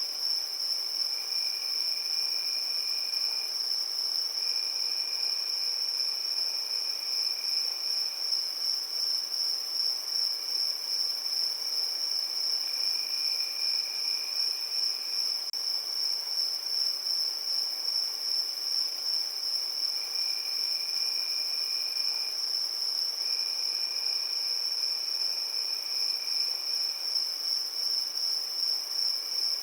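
Crickets chirping at night: a steady, high-pitched, rapidly pulsing trill that never stops, with a second, lower trill that comes and goes in bouts of two to four seconds about five times.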